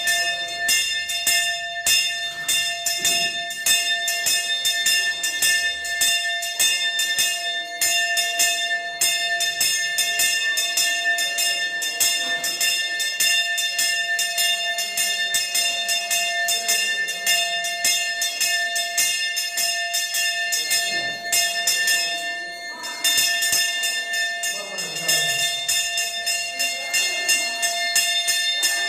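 Brass temple hand bell (ghanta) rung rapidly and without pause, several strokes a second, with a short break about three quarters of the way through. Faint chanting can be heard under it toward the end.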